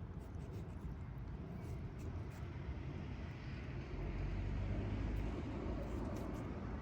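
Low rumbling outdoor background noise that swells about four seconds in.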